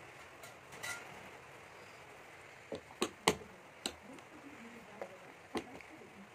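Small hands tapping and patting a plastic booster-seat tray scattered with rice grains: about six sharp taps, two of the loudest close together about three seconds in, over quiet room tone.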